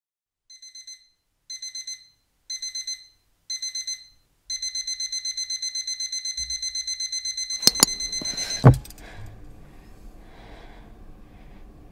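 Digital alarm clock beeping: short groups of rapid beeps about once a second, growing louder, then continuous fast beeping for about four seconds. A couple of sharp clicks and a loud thump come as the beeping cuts off suddenly, leaving faint room noise.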